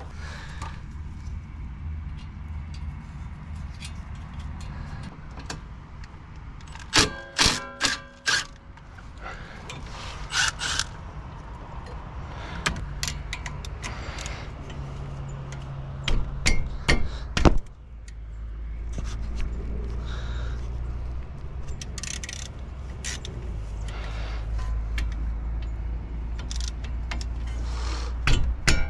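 Hand tools on the metal of a car's front brake and steering hub: a quick run of about five sharp, ringing metal strikes, more clanks and knocks a few seconds apart, then a steady low rumble underneath from about halfway on.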